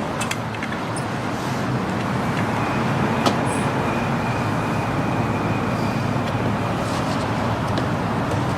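Steady road traffic noise, with a single sharp click about three seconds in.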